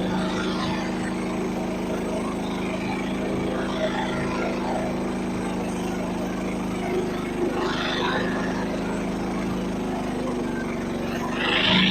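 Small gasoline engine of a Frontier OS31 portable band sawmill running steadily, with a brief louder, noisier surge near the end.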